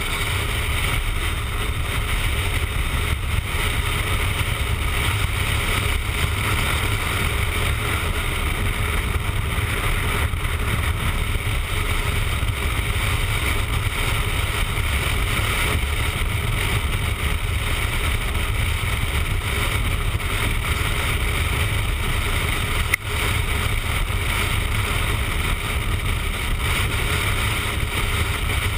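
Steady wind rush and engine and road noise of a motorcycle cruising on the highway, picked up by a camera mounted on the bike, with one short knock about three-quarters of the way through.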